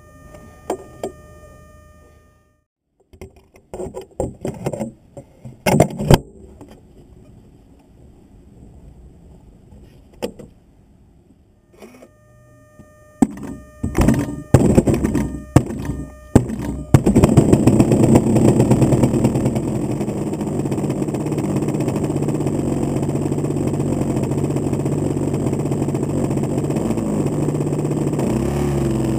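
Knocks and clatter of the model plane being handled, then its 30cc two-stroke gasoline engine being started: a few loud sputtering bursts, catching about 17 seconds in, running fast at first and settling to a steady idle from about 20 seconds.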